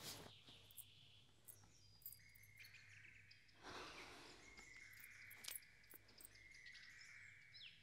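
Near silence: faint room tone with a few faint, high, held chirps and small clicks.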